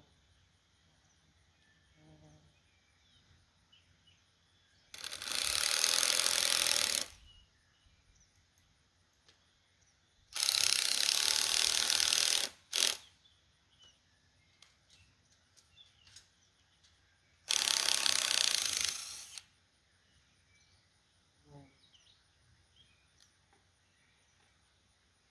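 Three bursts of ratcheting, each about two seconds long, with a brief extra burst right after the second, and small scattered clicks in between.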